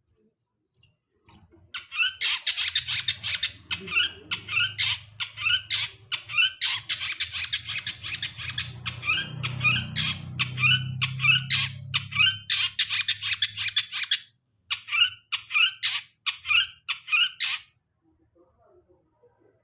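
Long-tailed shrike (cendet) singing: a fast stream of short high notes repeated several times a second, breaking off a couple of seconds before the end. A low hum runs underneath for most of the song.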